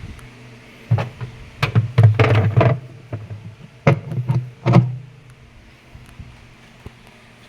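A run of sharp knocks and clatters, bunched between about one and five seconds in, as parts of an automatic washing machine are handled and fitted back in place.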